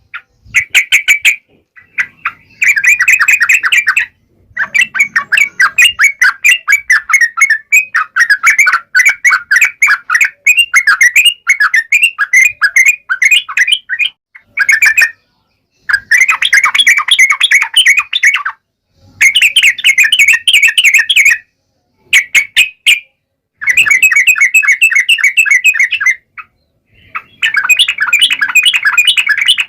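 Yellow-vented bulbul (trucukan) singing in rapid chattering phrases of quick repeated notes. Each phrase lasts a few seconds and is broken by short pauses. This is the lively, full song of a bird in top singing form, used to provoke other trucuk birds into answering.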